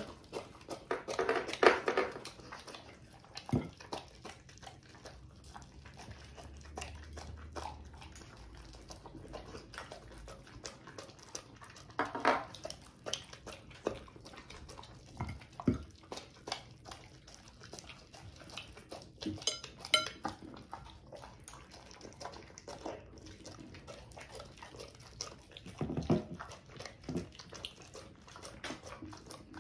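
Two dogs eating rice off plates: chewing and licking, with many short clicks as tongues and muzzles knock the plates, and a few louder scrapes of the plates.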